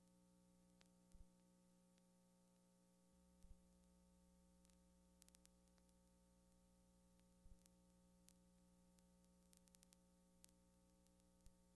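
Near silence: a faint steady hum with a few scattered tiny clicks, the empty soundtrack of a silent film.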